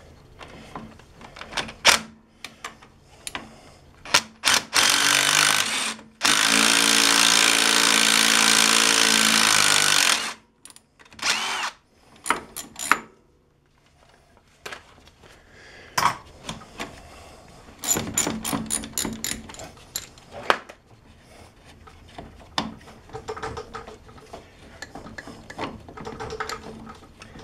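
Cordless power tool spinning a socket to back out ATV suspension bolts held with blue thread locker: a few short bursts, then one steady run of about four seconds. Later come metal clinks and a spell of rapid ratchet clicking.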